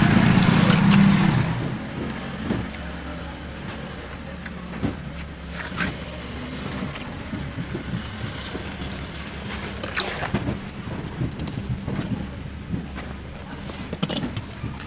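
A motor vehicle's engine running close by, loudest in the first second or so, then a steadier lower hum. A few sharp knocks of a knife against the wooden board cut through it now and then.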